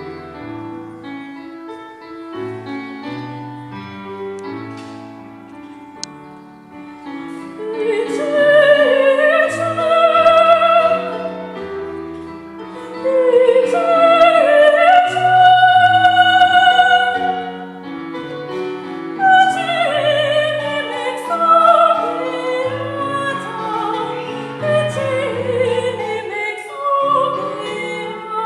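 Live classical music: a piano accompaniment plays alone for about the first seven seconds, then an operatic voice enters, singing sustained high notes with vibrato over the piano.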